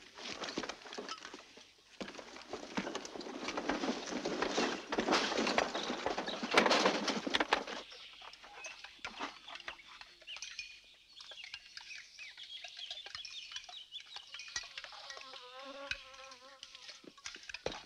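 Outdoor forest ambience: a rushing noise swells and fades over the first eight seconds, then it goes quieter, with faint insect and bird calls and a short warbling call near the end.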